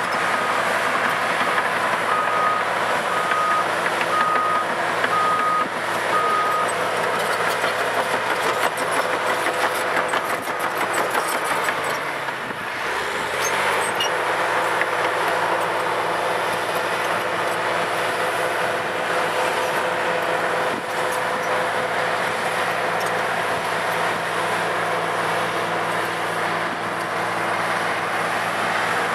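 Cat D8R bulldozer's diesel engine running hard, with its backup alarm beeping at an even pace for the first six or so seconds while it reverses. About twelve seconds in, the engine note drops and rises again, then it runs on steadily.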